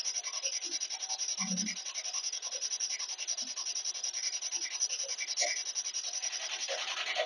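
SB7 spirit box sweeping rapidly through radio stations: choppy static that pulses several times a second, with brief snatches of broken radio sound.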